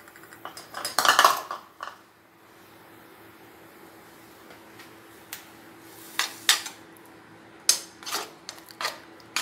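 Spatula scraping and knocking against a nonstick frying pan while ground masala is stirred and spread, a run of short sharp knocks in the second half.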